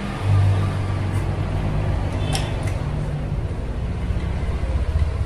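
A steady low engine rumble, like a motor vehicle running nearby, with a few small metallic clicks a little past two seconds in as nuts and bolts are fitted by hand on a CNC carriage block.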